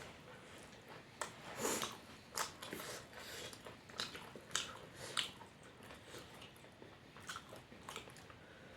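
Close-miked eating sounds of a person chewing and biting food, with irregular small clicks and smacks a few times a second.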